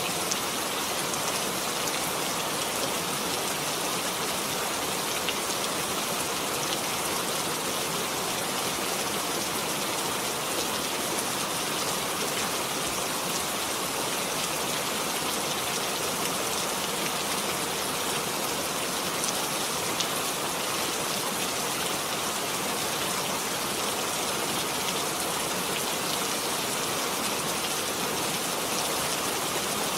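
Steady rain falling, an even hiss dotted with many small drop ticks and no lulls.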